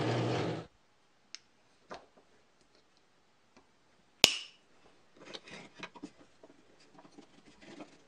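A running machine cuts off under a second in, followed by small wooden clicks and knocks as wooden lock parts are handled and fitted. There is one sharp click about four seconds in, then soft rubbing and scraping.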